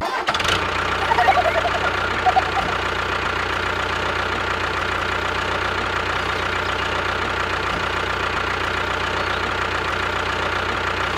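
An engine running steadily with a fast, even chugging, starting abruptly. A few brief wavering higher tones come in over it within the first few seconds.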